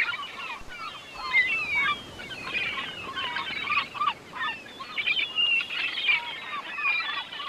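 A flock of birds calling continuously, with many short overlapping calls and chirps.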